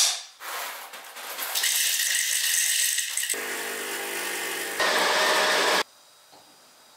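Home espresso machine at work: a click, then a few seconds of steady mechanical noise, then the vibration pump humming for about a second and a half. A loud hiss follows and cuts off suddenly near the end.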